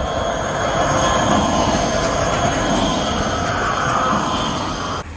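Škoda 14T low-floor tram passing close by on a curved track: the wheels rumble and a high steady squeal rides over them. It swells as the tram goes past, then cuts off suddenly near the end.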